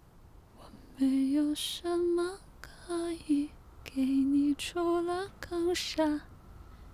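A woman singing a slow Chinese pop ballad, her voice coming in about a second in with long held notes.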